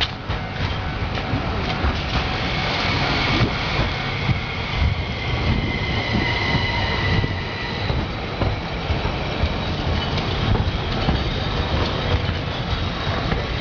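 Tokyu Setagaya Line two-car tram passing close by, its wheels rumbling on the rails. A high-pitched tone sounds from about two to eight seconds in.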